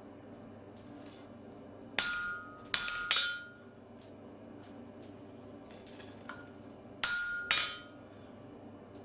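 Blacksmith's hand hammer striking a red-hot Damascus steel dagger blade on the anvil: three blows about two to three seconds in, then two more about seven seconds in, each with a short metallic ring.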